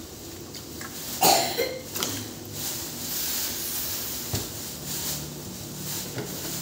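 Potato chunks simmering in broth in an aluminium wok, a steady low bubbling and hiss, broken by one sharp, short loud sound about a second in and a lighter click just before two seconds.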